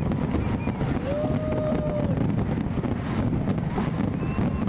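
A dense fireworks barrage: many shells bursting at once, merging into a continuous rumble with crackling throughout. A steady whistling tone is held for about a second, about a second in.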